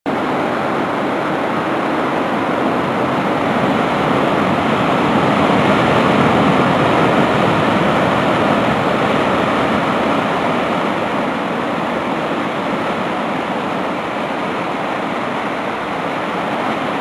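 Heavy sea surf breaking over rocks: a steady roar of crashing waves and churning foam that swells a little louder in the middle and eases off toward the end.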